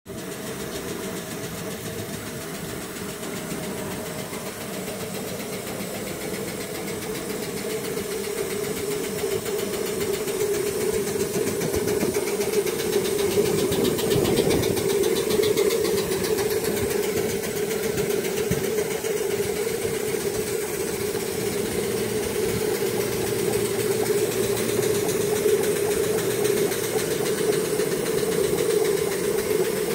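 Live-steam Connor walking-beam locomotive engine running under steam, a steady mechanical running sound mixed with escaping steam; it grows louder about ten seconds in.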